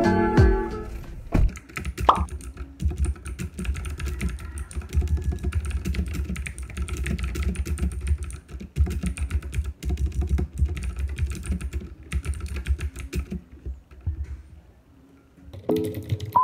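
Fast typing on a computer keyboard: a dense, uneven run of key clicks that dies away about two seconds before the end. Music trails off in the first second and comes back near the end.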